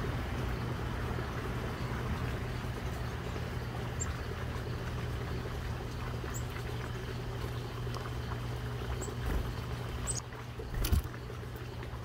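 A steady low hum of outdoor background noise, with a few short high chips from small birds and one sharp knock about eleven seconds in.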